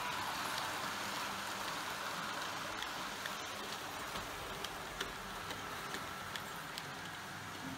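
HO-scale model goods train rolling along the track: a steady hiss of small wheels on the rails with occasional light clicks, easing off slightly as the train moves away.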